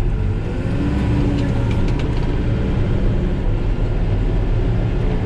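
Cat backhoe's diesel engine running steadily as it plows snow, heard from inside the cab, with a brief rise and fall in its note about a second in.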